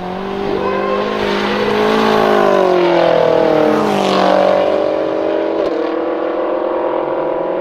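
Tuned twin-turbo 4.4-litre V8 of a BMW M6 F13 at full throttle, its rear tyres spinning. The engine note rises, dips and climbs again as the car pulls away past. Near the end the sound changes abruptly to a steadier engine tone.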